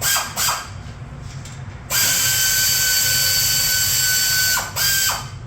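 Electric drill-driver run in two quick bursts, then held for about three seconds with a steady whine that rises as it spins up and drops as it stops, then one more short burst near the end.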